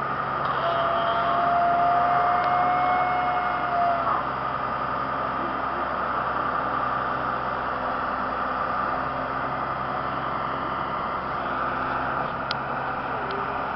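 Backhoe engine running steadily while digging a trench. A high steady whine sounds over it from about half a second to four seconds in, and a couple of light ticks come near the end.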